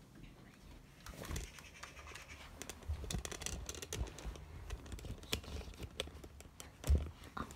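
Scratchy rustling and clicking handling noise from someone moving with a handheld camera, with soft footfall thuds and one louder thump about seven seconds in.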